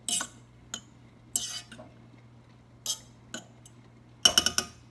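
Metal fork scraping and clinking against a stainless steel saucepan while fluffing cooked rice, in short strokes about once a second. A quick run of louder clinks comes near the end.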